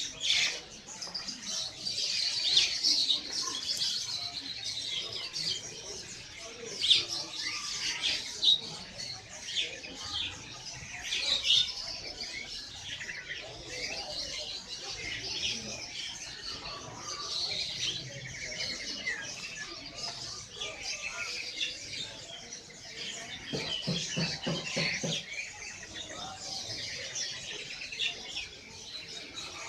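Many caged songbirds of mixed kinds chirping and singing at once, a dense chorus of overlapping calls. A brief low hum joins in shortly before the end.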